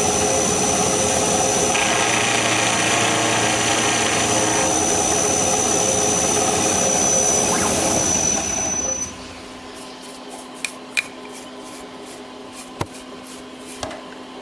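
Milling machine spindle and cutter running, trimming the top of a small bolt head held in a jig, with a steady high whine. It stops about nine seconds in, leaving a low hum and a few light clicks.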